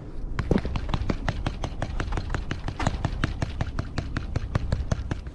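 Baitcasting reel clicking in a fast, even run of about five or six sharp ticks a second while the lure is snagged on the bottom, caught on oyster shells.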